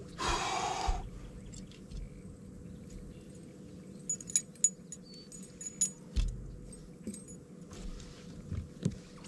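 A short splash a third of a second in as a largemouth bass goes into the water of the boat's livewell. Then scattered light clicks and rattles and a few dull knocks on the boat.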